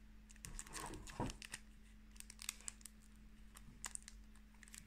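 Foil wrapper of a Pokémon card booster pack crinkling and crackling in the fingers as its sealed top is worked open: a scatter of faint small clicks and rustles.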